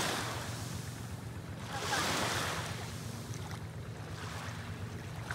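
Small waves washing up onto a sandy beach, with a surge about two seconds in, over a low steady hum.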